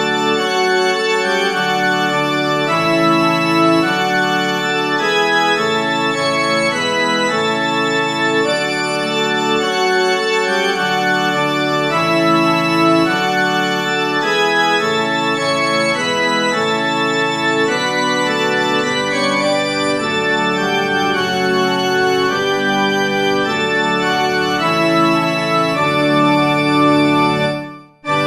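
Organ playing a slow succession of sustained chords, changing about every second, like a hymn played without singing; it stops abruptly near the end.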